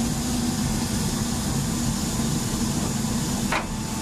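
Steady low rumble and hiss of a steam locomotive standing close by. A short sharp click comes about three and a half seconds in.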